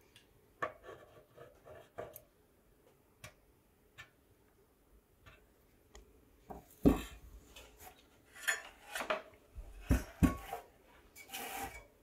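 A soldering iron tip and a steel pick scraping and knocking against a sheet-metal RC car body while a small hinge is soldered. Light scattered clicks at first, then from about halfway a sharp knock, short rasping scrapes and two more knocks, and a longer scrape near the end.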